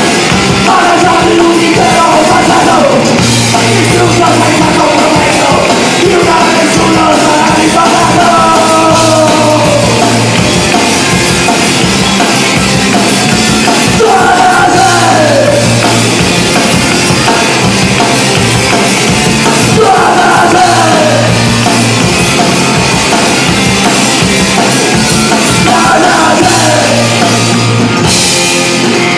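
Live rock band playing loudly: electric guitar, bass guitar and drum kit, with a singer. The singing runs through the first ten seconds, then comes in short phrases every few seconds.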